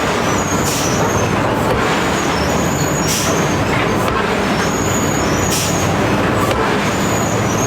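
Mechanical hammer striking iron over a loud, steady machine noise: sharp metallic blows come in pairs about every two and a half seconds, each with a brief high ring.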